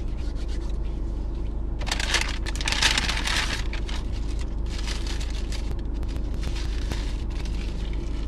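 Fingers rubbing and tapping on a smartphone's microphone, scraping and crackling in bursts about two, five and seven seconds in, over the steady low hum of a car cabin.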